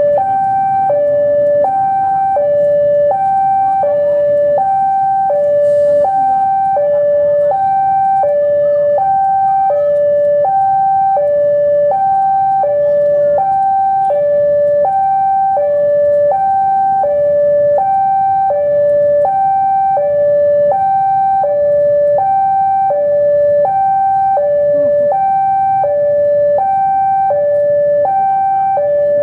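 Loud electronic two-tone warning alarm stepping steadily between a high and a low note, about one high-low cycle a second, over the low running of a CC 203 diesel-electric locomotive's engine.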